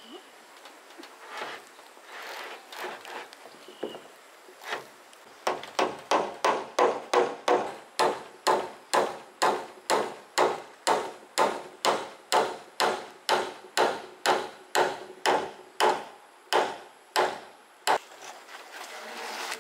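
A tool striking wood over and over: a few scattered knocks at first, then a steady, even run of sharp blows, about three a second, for some twelve seconds before it stops near the end.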